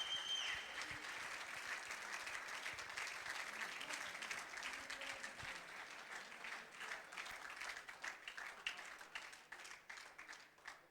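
Audience applauding, the dense clapping thinning to scattered claps and dying away near the end. A high steady tone fades out in the first moment.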